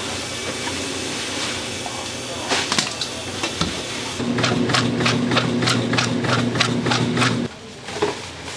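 A steady hiss, then a small machine hums with a regular clicking about four times a second, starting about halfway through and stopping suddenly some three seconds later.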